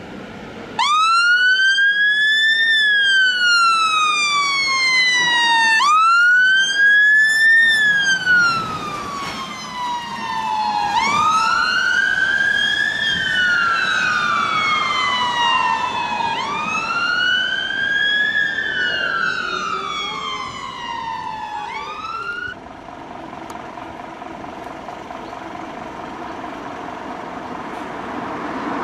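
Fire engine siren on wail: a tone that rises over about two seconds, falls more slowly over about three, and repeats about every five seconds, four full sweeps in all, before cutting off suddenly a little past two-thirds through. Engine and traffic noise carries on afterwards.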